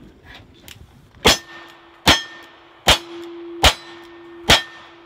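Single-action revolver fired five times, about one shot every 0.8 seconds, each shot followed by the ringing of a steel target being hit.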